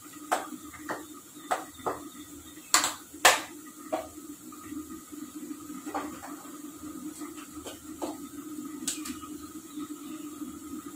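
Gas stove burners running with a steady low hum under a pan of heating coconut oil. Scattered small clicks, with two sharper knocks about three seconds in.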